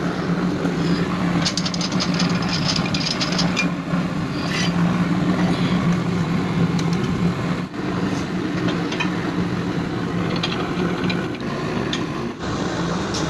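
An engine or motor running steadily with a low hum, with scattered light clicks and taps over it.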